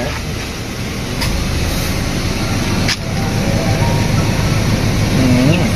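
Car running with its freshly regassed air conditioning on: a steady low hum of engine and blower, with a sharp click about three seconds in.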